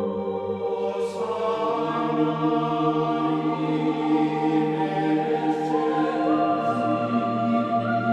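Ambient background music of long sustained chords, shifting to new chords about a second in and again around six seconds in.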